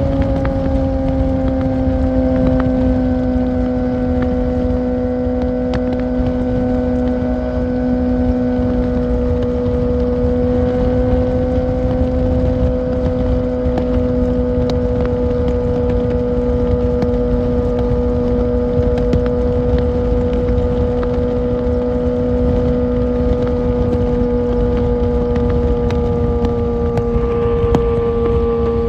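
Kawasaki Ninja ZX-6R's inline-four engine at a steady highway cruise, a constant drone over a heavy low rush of wind and road noise; the pitch eases down slightly near the end.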